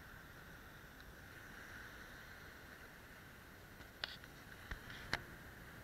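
Faint, steady hiss of wind and small waves breaking on a beach, with a few sharp clicks about four and five seconds in.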